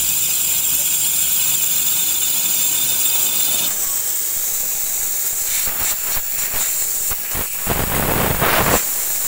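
Pressurised nitrogen and R-141b flushing solvent hissing out of a refrigerator's open refrigerant line at the condenser, the system being flushed because it is clogged. The hiss eases a little after about three and a half seconds, then irregular louder gusts come from about five and a half seconds in, the loudest just before the end.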